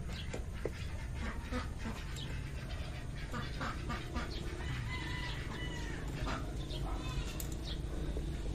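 Light clicks and clinks of hand tools on bolts and a hose clamp in a car's engine bay, with poultry calling in the background over a low steady hum.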